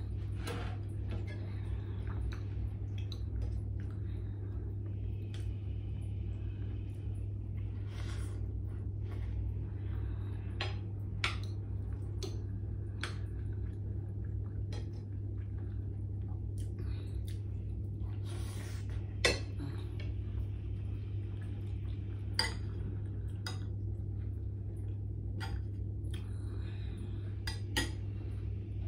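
Spoon and fork clinking and scraping against ceramic bowls while eating, in scattered sharp taps, a few louder than the rest, over a steady low hum.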